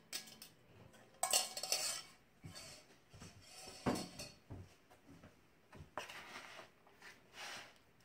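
Kitchen dishes and utensils clattering as an emptied stainless steel mixing bowl is handled and set down. The clatter is loudest about a second in, with a sharp knock about four seconds in and lighter knocks after.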